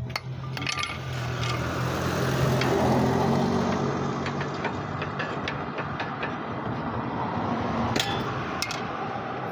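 Hammer blows on the 2016 Dodge Journey's lower control-arm ball joint, being knocked loose from the steering knuckle without a separator tool. There are a few light metallic clinks early on and one sharp ringing strike about eight seconds in, over a steady low rumble that swells and then fades.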